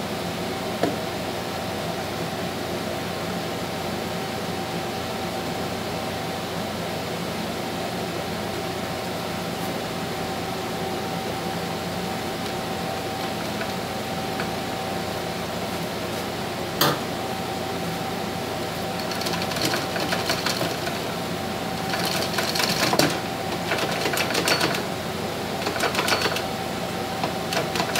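Clutch drum of a 09G (Aisin TF60SN) six-speed automatic transaxle being worked down by hand over the clutch plates, over a steady background hum. There is one sharp metal knock, then in the last third repeated bursts of rapid clicking and rattling as the drum is turned back and forth to engage the clutch-plate teeth. It drops into place just after.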